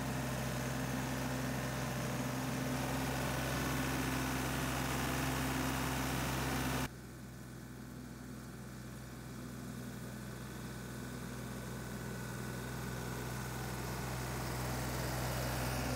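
Ditch Witch riding trencher's engine running steadily, heard close up from the operator's seat. About seven seconds in it cuts to the engine heard farther off, growing gradually louder as the machine comes closer pushing soil back into the trench with its blade.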